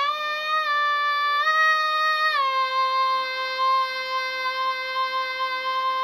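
A teenage girl's solo singing voice holding the song's final long note on an open vowel. The pitch steps up slightly twice, drops a little a couple of seconds in, and is then held steady.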